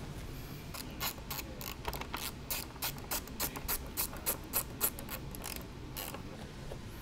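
Hand ratchet clicking in quick, even strokes, about three to four a second, as a fairing bolt is driven in. It stops a little under six seconds in.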